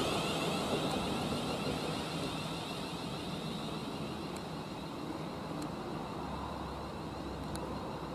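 Class 350 Desiro electric multiple unit running away into the distance. Its rumble fades over the first few seconds and then holds low and steady, with a faint high whine.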